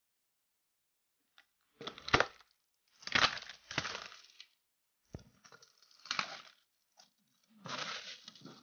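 Cardboard box flaps being pulled open and the plastic wrapping and foam packing of a bench grinder being handled: short bursts of crackling and rustling with a few sharp clicks, starting about two seconds in.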